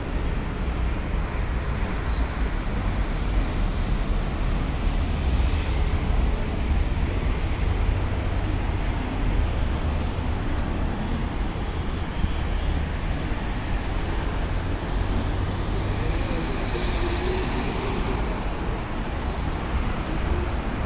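Steady road traffic noise from a busy multi-lane road: a continuous rumble and hiss of passing cars and trucks.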